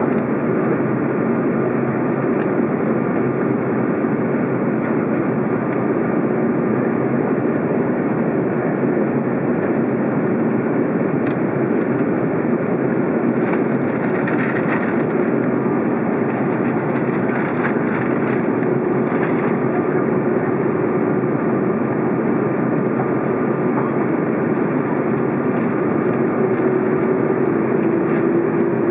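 Steady engine and airflow noise inside the cabin of an Airbus A330 in flight on its arrival descent, heard at a window seat beside the turbofan engine. A faint hum rises slightly in pitch near the end.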